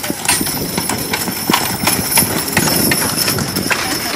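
A team of two draft horses trotting close by, hitched to a wooden-wheeled wagon: a rapid run of hoofbeats and harness clinks over the rumble and rattle of the wagon rolling.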